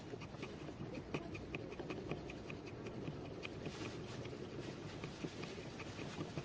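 Steel blade of a Dulo Knives 'Woody' bushcraft knife shaving a dry wooden stick, carving thin curls for a feather stick. It makes a quick run of short, crisp scraping strokes, several a second.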